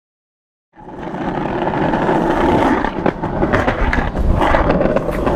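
Skateboard wheels rolling on concrete sidewalk: a steady low rumble with scattered sharp clicks, starting less than a second in.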